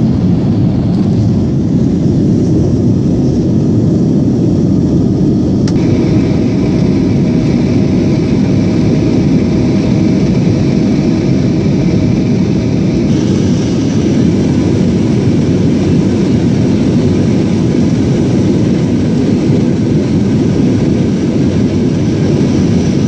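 Jet airliner heard from inside the passenger cabin: loud, steady engine and airflow noise. A faint whine joins about six seconds in, and the hiss grows brighter about thirteen seconds in.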